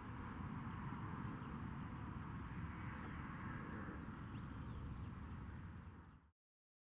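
Outdoor ambience from a camcorder's microphone: a steady low rumble with hiss, and a few faint bird chirps about three to four seconds in. It cuts off abruptly shortly before the end.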